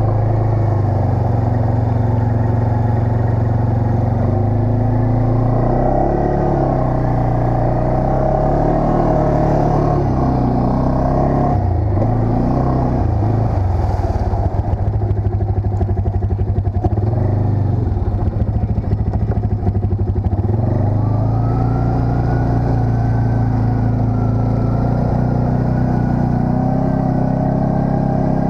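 ATV engine running as the quad is ridden, its pitch rising and falling with the throttle; it slows to a low chug in the middle before picking up again.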